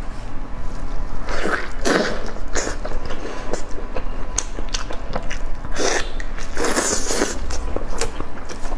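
Biting into and chewing sticky glazed braised lamb chops, heard as dense irregular wet smacks and clicks with louder bursts as the meat is bitten and torn.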